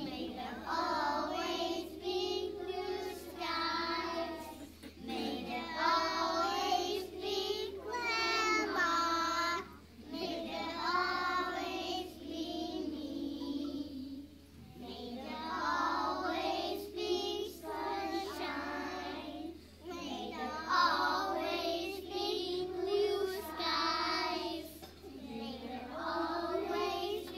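A class of preschool children singing a song together in unison, phrase by phrase, with short breaks between lines.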